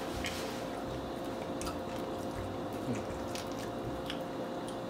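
Soft, wet chewing of fried fish with the mouth closed, with a few faint mouth clicks scattered through.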